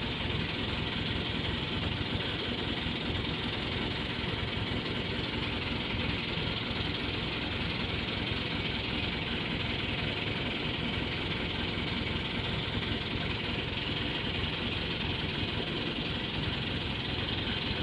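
Fishing boat's engine idling, a steady, even noise.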